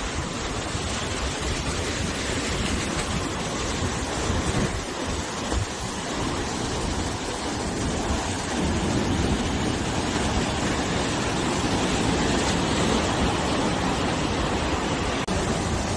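Sea waves surging and breaking against the shore, with wind, as a continuous rushing wash that swells louder about halfway through.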